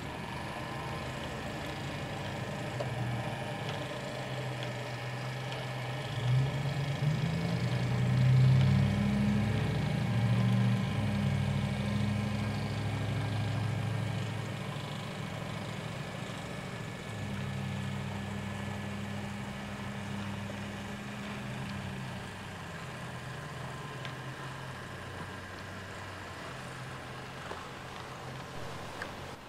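N scale model diesel locomotive running, giving a steady low engine drone that gets louder and rises in pitch about six to ten seconds in, then eases off.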